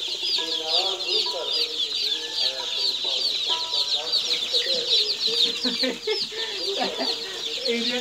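A large brood of day-old chicks peeping all at once: a dense, continuous chorus of high, short peeps.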